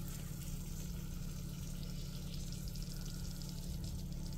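Faint sizzling and crackling as beaten egg is poured onto cheese in a hot mini waffle maker, over a steady low electrical hum.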